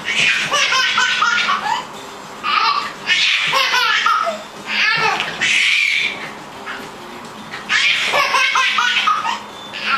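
A baby belly-laughing in several fits of rapid, breathy laughter, one to two seconds each, with short pauses between them.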